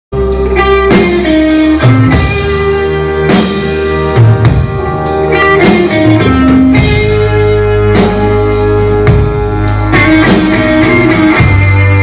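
Live band playing an instrumental passage without vocals: electric guitars, keyboards and sustained bass notes over a drum kit beat.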